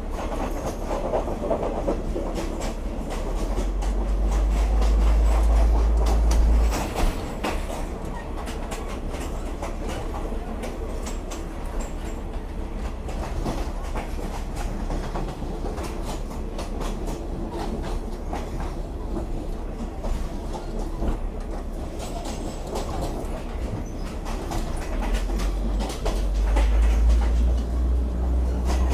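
Train running, heard at the gangway over the coupling between two carriages: steel floor plates and coupler gear clatter and rattle without a break over the wheels' clickety-clack and rumble. A heavy deep rumble swells twice, around four to six seconds in and again near the end.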